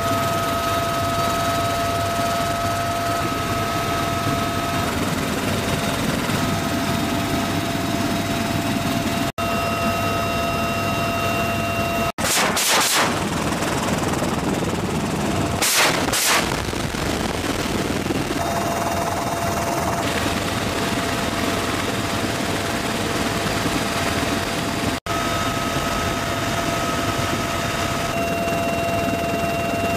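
Steady helicopter cabin noise with a high whine. Near the middle, a door-mounted rotary machine gun fires two short bursts a few seconds apart.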